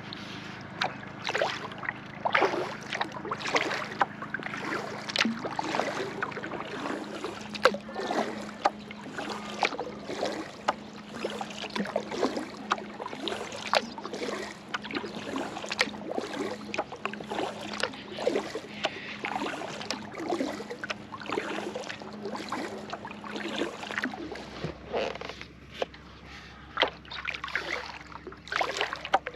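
Kayak paddle blades dipping and pulling through the water in a steady rhythm of splashy strokes, about one or two a second.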